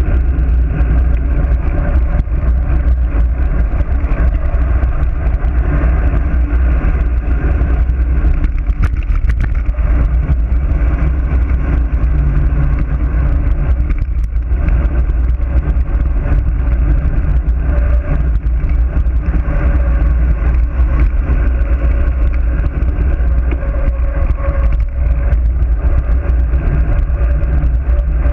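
Loud, steady wind buffeting on a GoPro's microphone from a fast road-bike descent, a deep rumble with a muffled hiss above it.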